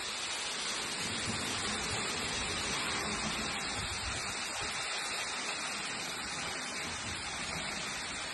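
Heavy hail falling steadily during a hailstorm, an even hiss.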